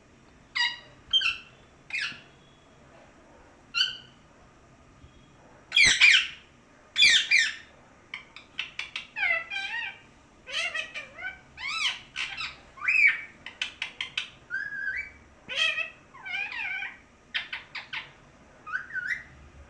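Pet parrot calling: a few separate short squawks, two loud calls, then a fast run of chirps and whistled calls that slide up and down in pitch.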